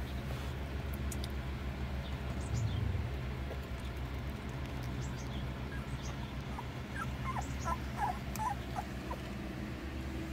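Young puppies, eyes just opening, giving a few short, high whimpers and squeaks, clustered about two-thirds of the way in, over a steady low hum.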